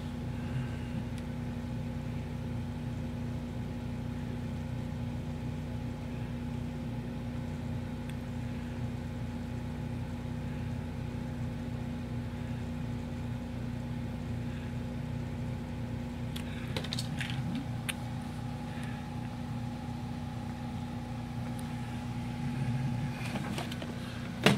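Steady low hum with a few steady tones, with a few faint clicks about two-thirds of the way in and a sharp click near the end.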